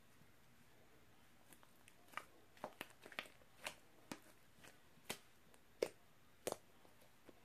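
Slime being played with, giving a string of irregular sharp pops and clicks, about a dozen of them, starting about two seconds in.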